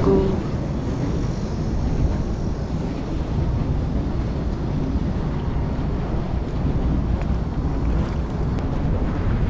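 Wind buffeting the microphone: a steady low noise.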